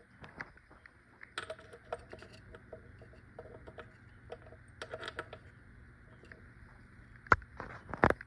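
Light metallic clicks and clatter as the powerhead of a 1957 Mercury Mark 6 outboard is turned over by hand for a spark test, with two sharp, loud clicks near the end.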